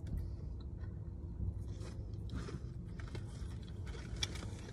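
Faint chewing and handling of chicken nuggets and fries, with a few soft clicks and rustles, over a steady low rumble inside a car.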